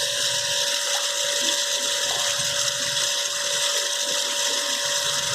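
Wire EDM machine cutting: a steady hiss with two steady whining tones under it.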